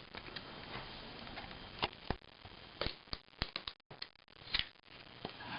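Sharp plastic clicks and snaps from prying a black plastic tab out of a Garmin 60CSx handheld GPS case: a single click about two seconds in, a quick run of several around the middle, and one more near the end.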